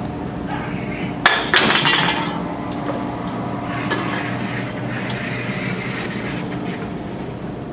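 Vending machine dispensing a soda can: two sharp clunks about a second in, then a short rattling clatter, over a steady machine hum.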